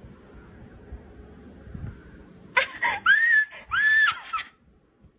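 Kitten crying out loudly, two high, drawn-out meows that rise and fall in pitch, about halfway through.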